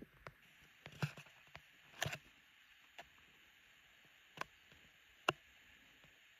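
Faint, scattered soft clicks and knocks from a phone camera being handled while its holder moves quietly on foot, over a soft steady hiss; the sharpest click comes about five seconds in.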